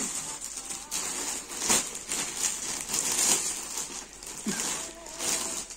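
Rustling and crinkling as stoles are handled and shaken out, with several sharper crackles.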